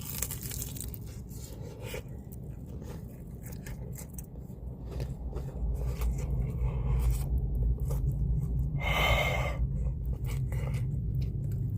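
Close-up chewing of a fried egg roll, with irregular crisp crunches and mouth clicks. A steady low hum of the parked car's running engine sits underneath and grows louder about halfway through, and there is one short noisy burst about three-quarters of the way in.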